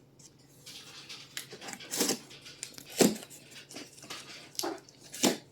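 A cardboard package being worked open by hand: rustling and scraping, with three sharp knocks or snaps about two, three and five seconds in.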